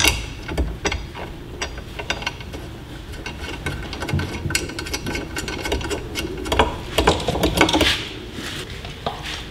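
Hand-fitting a metal bracket and its hex bolts under a motorcycle's tail: irregular clicks, taps and small rattles of metal parts, with a busier cluster of clicks past the middle.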